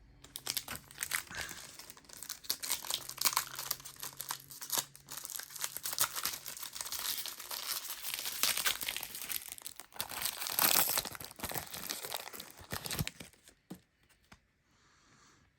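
Plastic trading-card pack wrapper crinkling and tearing as it is opened by hand, a steady rustling that stops about two seconds before the end.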